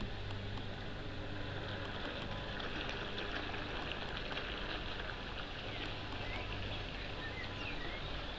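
Radio-controlled model speedboat's motor running as it crosses the water: a low drone that grows stronger and weaker, over a steady outdoor hiss.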